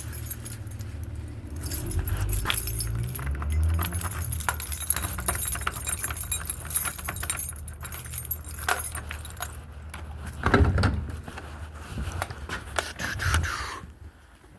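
A bunch of keys jangling and clinking as they are sorted through to find the right one, with a few louder knocks about ten seconds in. A low rumble runs under the first few seconds.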